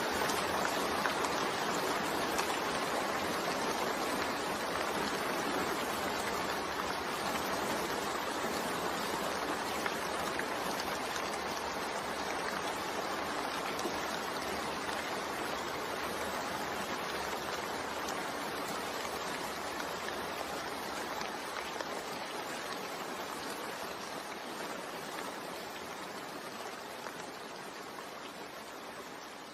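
Steady rain noise, an even hiss that slowly grows quieter over the second half.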